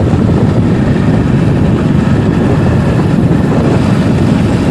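Steady rumble of a motorcycle on the move: the engine running with wind buffeting the microphone.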